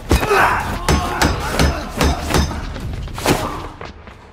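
Fight sound effects: a quick series of punches and body blows, about eight thuds and whacks, with a man's pained cry near the start. The blows die away near the end.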